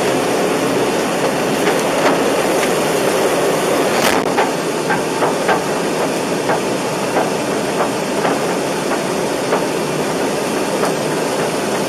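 Bushfire burnover engulfing a stopped fire truck: a loud, steady rushing hiss with scattered sharp crackles and knocks, one stronger crack about four seconds in.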